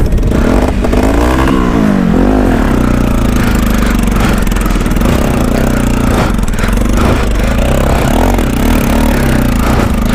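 Motorcycle engine running under load while riding over a sandy off-road track. Its note rises and falls in the first couple of seconds, then holds steady.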